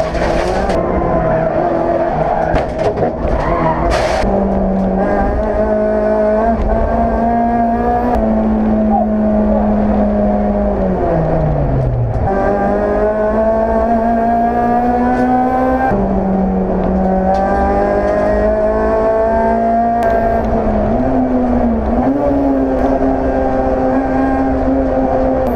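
Honda Civic Type R (EP3) race car's 2.0-litre four-cylinder engine heard from inside the cabin, pulling through the gears with its pitch slowly climbing. About halfway through, the pitch falls away as the driver lifts off. It then climbs again, dropping at each upshift a few seconds apart.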